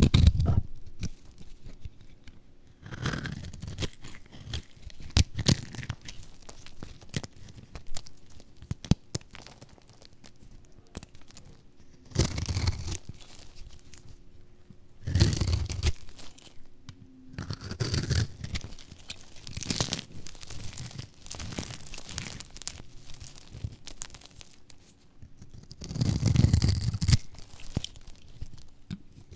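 Crunchy dry soap bars being cut with a flat blade: separate scraping, crunching strokes every few seconds as the blade shaves and slices through the hard soap, with small sharp clicks in between.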